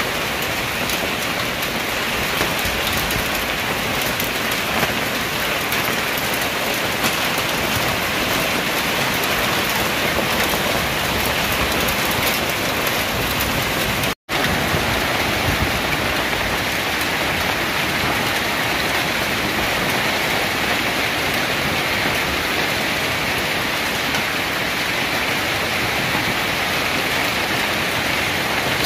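A hailstorm, hail and rain pelting down steadily onto a paved street and parked cars. The sound cuts out for an instant about halfway through.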